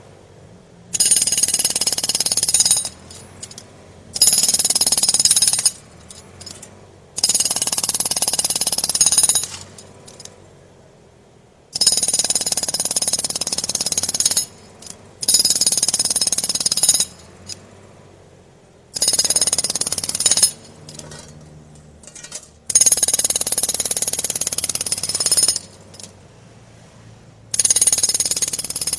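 Pneumatic jackhammer hammering in short bursts of about two to three seconds, some eight in all, with brief pauses between them.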